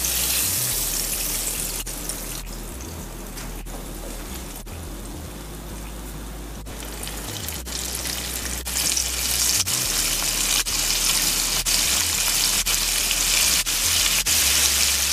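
Hot oil sizzling as flour-coated fine bangamary fish deep-fry in a pan. The sizzle eases off for a few seconds, then grows louder again about halfway through as a fresh batch of fish goes into the oil.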